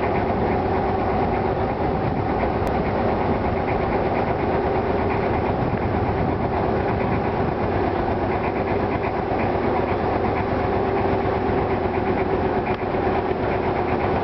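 Engine of a small river boat running steadily under way, with a fast, even beat.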